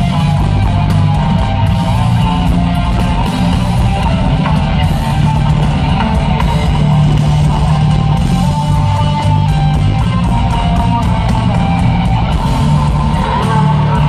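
Live rock band playing loud: electric guitar, bass and drum kit, heard from the audience.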